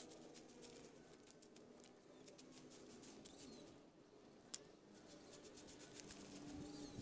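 Faint scratchy brushing and ticking of a stiff stick broom sweeping leaves and debris over bare soil.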